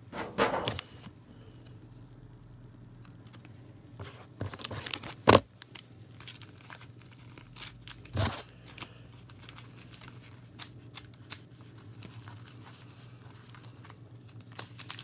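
Pokémon card collection box packaging being handled and unpacked: bursts of tearing and crinkling of cardboard and plastic, with scattered clicks and a sharp knock about five seconds in, the loudest moment.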